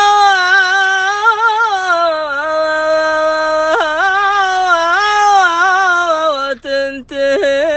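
A man singing an unaccompanied, slow Arabic melody, stretching one word over long held notes with wavering ornaments, with two brief breaks near the end.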